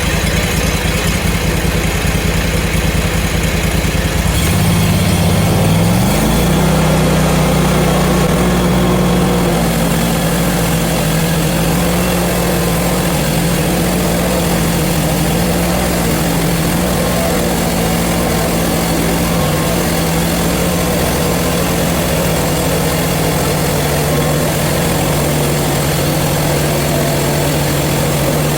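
Portable bandsaw mill's engine running slowly, then revved up about four to six seconds in and held at a steady higher speed as the band saws through a sugar maple log to finish the last cut.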